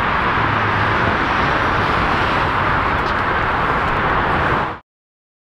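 Airbus A320-232's IAE V2500 turbofan engines running at taxi power, a steady jet noise that cuts off suddenly near the end.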